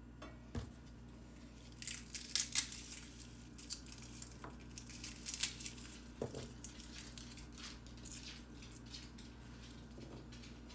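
Quiet kitchen handling sounds: paper towel rustling and crinkling, with a few soft knocks against the counter and stove.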